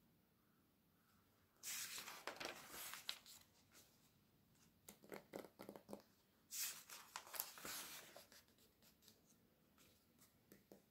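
Glossy catalogue pages turned by hand twice, about two seconds in and again near seven seconds, each a crisp rustle and crinkle of thin coated paper. Softer paper rustles and a few light fingertip taps fall in between and near the end.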